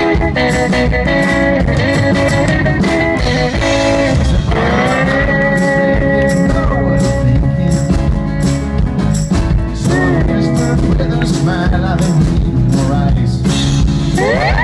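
Live rock band playing an instrumental passage, with guitar to the fore over drums and bass.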